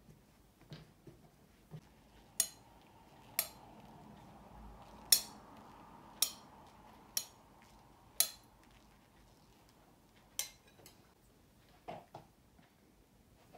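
A series of sharp clinks, about seven, roughly a second apart, the loudest about five seconds in.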